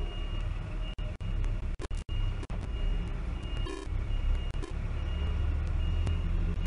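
Low, steady engine rumble of a box truck maneuvering, with a short high beep about three and a half seconds in. The sound cuts out briefly several times.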